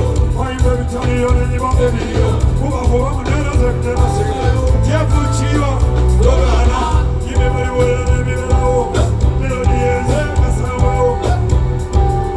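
Loud band music with a singing voice over a steady, pulsing bass beat.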